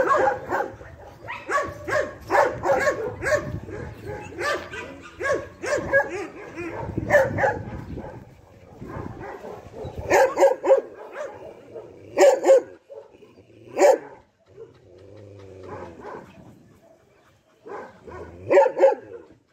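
Dog barking: a quick run of repeated barks for the first several seconds, then single barks every couple of seconds, sparser toward the end.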